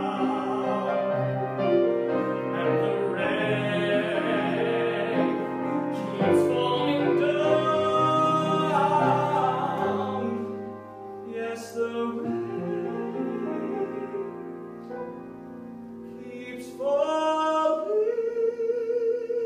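A young man singing a musical-theatre ballad solo, with sustained notes and runs, swelling near the end into a long held high note.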